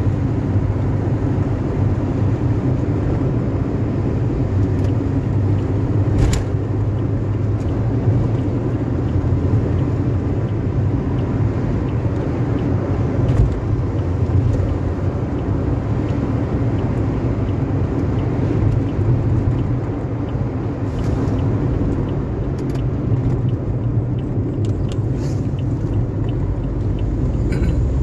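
Steady low rumble of a car's engine and tyres heard inside the cabin while driving at speed, with a few brief faint clicks.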